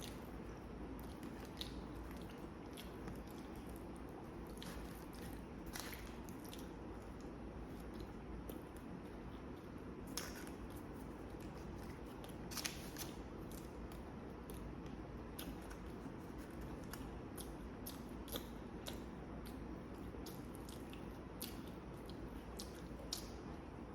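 A person chewing and biting food close to the microphone: irregular wet mouth clicks and soft crunches over a steady low background hum.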